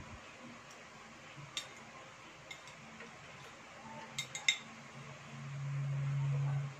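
Metal fork and spoon clinking a few times against ceramic plates and bowls, with a quick cluster of clinks about four seconds in. Near the end a low steady hum rises for about a second and a half.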